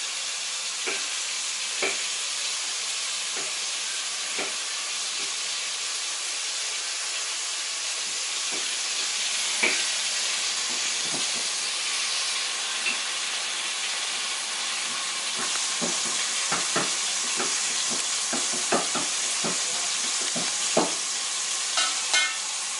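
Steady sizzling hiss with scattered light clicks and knocks, and a quick run of clicks near the end.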